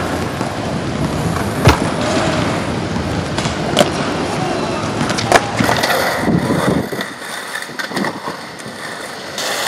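Skateboard wheels rolling on a hard outdoor sports-court surface, with three sharp clacks of the board. After about seven seconds the rolling gives way to a quieter stretch with a few faint ticks.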